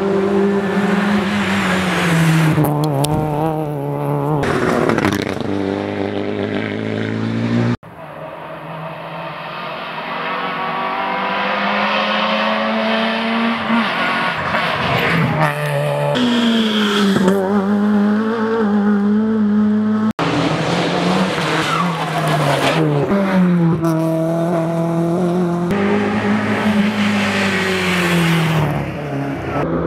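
Hill-climb race cars' engines revving hard as the cars accelerate past one after another, the pitch climbing and dropping back with each gear change. The sound breaks off abruptly twice, about eight and twenty seconds in, as one car gives way to the next.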